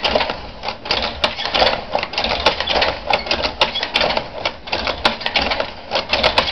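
Flat-braid-making machine with a Jacquard head running, its metal mechanism clattering with rapid, irregular clicks and clacks over a low rumble.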